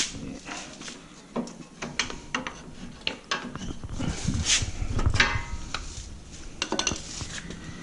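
Metal brake parts being handled at a car's front wheel: irregular sharp clinks and knocks, with a louder stretch of scraping and rubbing about four to five seconds in.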